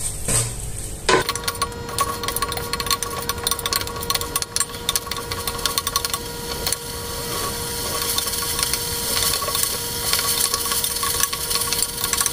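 Chicken and spices sizzling and crackling in a steel pot, with a few wooden-spoon stirring strokes at the start. After about a second, a steady faint whine runs under the dense crackle.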